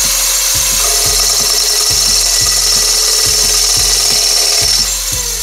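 Motor of a homemade pruning saw running at speed, its toothed disc cutting into a pine batten, with a high hiss and a light regular tick about two to three times a second. Its pitch sags near the end as the cut eases off.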